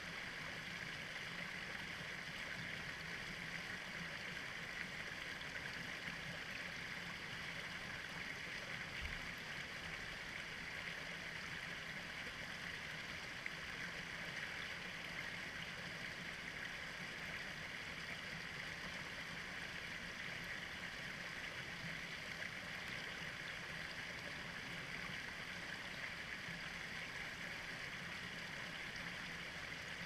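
Small cascade on a stream pouring over rocks into a shallow pool: a steady rush and splash of water.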